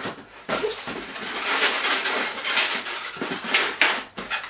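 Inflated black 260 latex twisting balloons squeaking and rubbing against each other and the hands as they are twisted and shaped, with several sharper squeaks in the second half.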